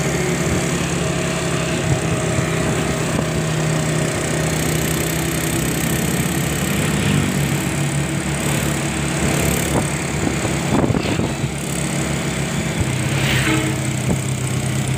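Vehicle engine running steadily on the move, with road and wind noise, and a short louder stretch about eleven seconds in.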